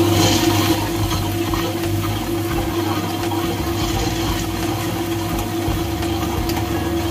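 SmartFingers Comfort Plus tabletop wet grinder running steadily, its motor humming as the stones grind a thick garelu (vada) batter made with little water. A brief hiss in the first second.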